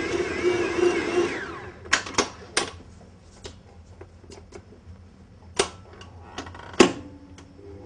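Kenwood stand mixer kneading bread dough, its motor winding down and stopping about a second and a half in. Then a series of sharp metallic clicks and knocks as the mixer head is raised and the dough hook and steel bowl are handled, two of them loud.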